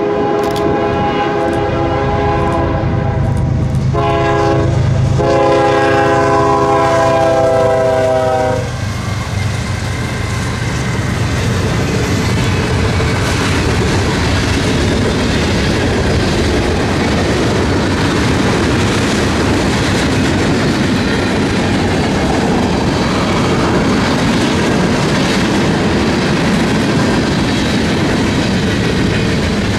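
Diesel freight locomotive's air horn sounding a chord of several notes, pausing briefly about four seconds in, then blowing again until it cuts off at about eight and a half seconds. The train then passes with a steady rumble and clickety-clack of wheels on the rails.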